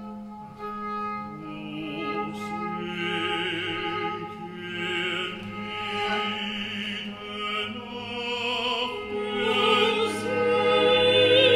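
Contemporary chamber music: a singer in operatic style with a wide vibrato over a steady low drone from the ensemble, growing louder toward the end.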